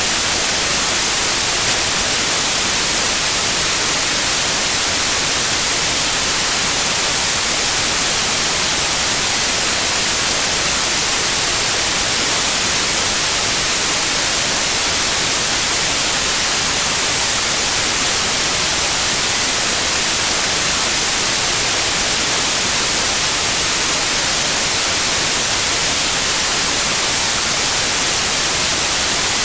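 Tinnitus-therapy signal: steady white noise with a high pure tone at about 9645 Hz laid over it. The tone stops about 7 seconds in and comes back near the end, while the hiss runs on unbroken.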